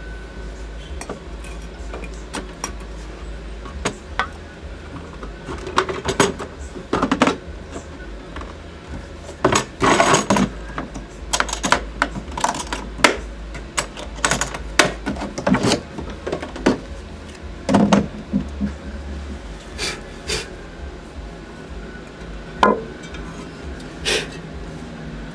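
Handling a refrigerant charging scale and its case: a string of irregular clicks, knocks and rattles of hard plastic and metal, over a steady low hum.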